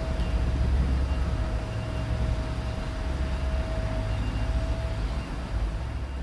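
Diesel engine of a yellow track maintenance machine running as it pulls away: a low rumble with a thin steady whine above it, slowly fading.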